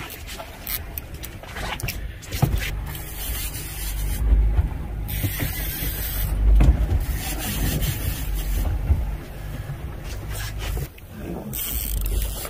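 Wind buffeting the microphone in heavy low rumbles on an open boat, mixed with the rubbing, ratcheting clicks and knocks of conventional fishing reels being cranked hard against hooked fish.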